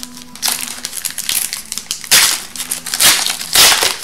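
Foil wrapper of an Upper Deck hockey card pack crinkling loudly as it is torn open and peeled back from the cards. It comes in several rustles, the loudest about two seconds in and again in the last second.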